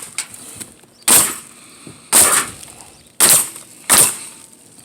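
Pneumatic roofing nailer firing nails through metal pipe flashing into the roof deck: four sharp shots about a second apart, each with a brief hiss.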